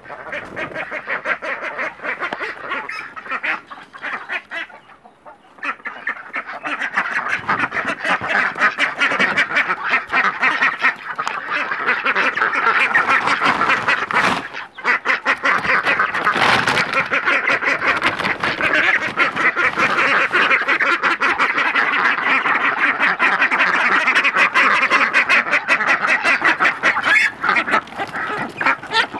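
A crowded flock of Pekin ducks quacking noisily and constantly as they are hand-fed. The calling is quieter for the first several seconds, then swells into a dense, rapid chatter.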